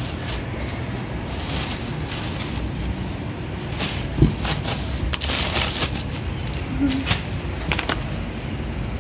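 Cardboard box flaps and a plastic-wrapped bundle rustling as a parcel is unpacked by hand, with a sharp knock about four seconds in, over a steady low rumble.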